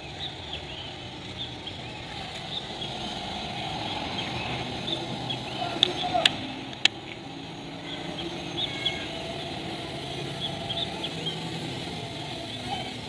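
Many short bird chirps over a steady low hum, with two sharp clicks about six seconds in.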